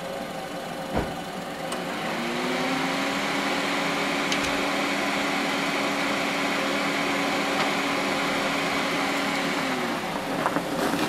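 Honda CR-V engine running near the front of the car, a steady hum that rises in about two seconds in and drops away near the end. There is a single dull thump about a second in.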